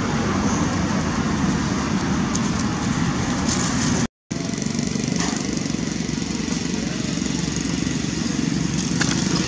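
Steady rumbling background noise, heaviest in the low end, that drops out completely for a moment about four seconds in.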